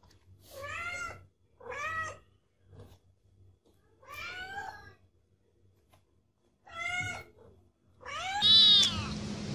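Domestic cat meowing five times with pauses between, each meow rising then falling in pitch. The last meow, near the end, is the loudest and comes over a steady hum and hiss.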